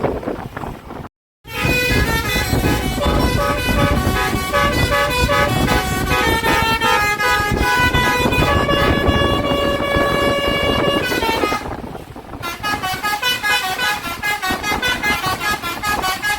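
Bus 'telolet' basuri musical horn playing a tune in held, stepping notes over the bus's engine and road noise, then quicker short staccato notes near the end. The sound breaks off for a moment about a second in.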